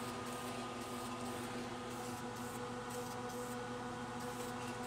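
Aerosol can of clear coat spraying in a steady hiss onto an alloy wheel, over the constant hum of a paint-booth extraction fan.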